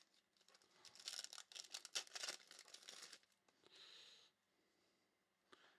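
Faint rustling and crinkling of baseball cards and their packaging being handled. It runs for about two seconds starting a second in, followed by a shorter, softer rustle.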